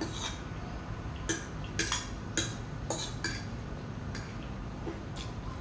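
A fork clinking and scraping against a plate while gathering noodles: a run of about eight short, sharp clicks.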